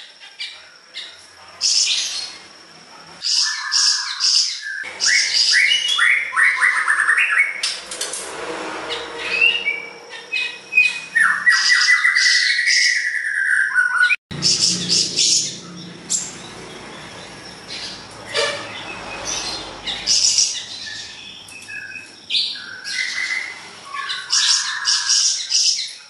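Caged siri-siri besar songbird in full, continuous song: a varied run of chirps, squawky calls and fast rattling trills with short pauses between phrases. A faint steady high tone runs underneath, and the sound drops out for an instant about halfway through.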